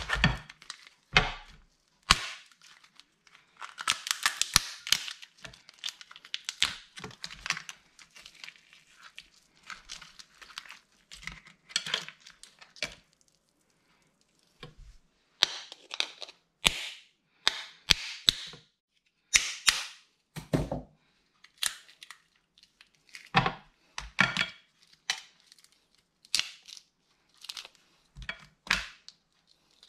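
Shell of a boiled lobster being cracked and pulled apart by hand to get the meat out: irregular sharp cracks and snaps, with a denser run of crackling about four seconds in.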